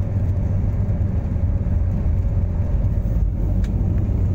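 Jet airliner heard from inside the cabin on its takeoff run: a steady, loud low rumble of engines and runway.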